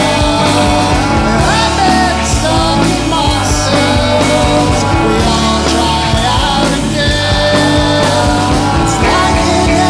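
Rock band playing a song with a steady drum beat under guitars.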